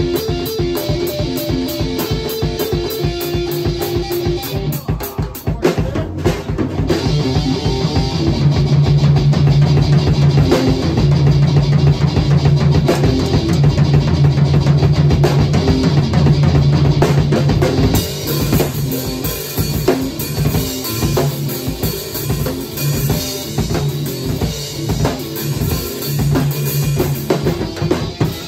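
Electric guitar and drum kit playing a loose rock jam together. The playing builds and is at its loudest from about eight seconds in.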